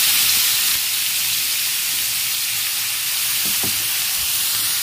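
Marinated chicken tikka pieces frying in very hot oil in a pan: a loud, steady, high sizzling hiss.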